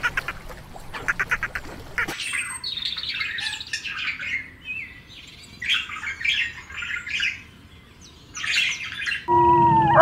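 Hummingbirds chirping in several quick clusters of short, high, squeaky notes. It opens with a rapid pulsed buzz that breaks off about two seconds in, and near the end a steady, held call begins.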